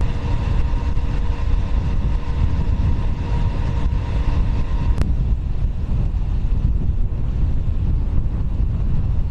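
Loud low rumbling noise with a steady hum in its first half; a sharp click about five seconds in, after which the hum is gone and only the rumble remains.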